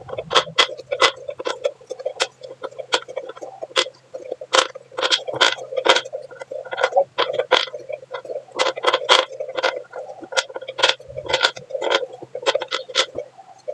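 A run of sharp, uneven clicks and taps, several each second, over a steady low hum.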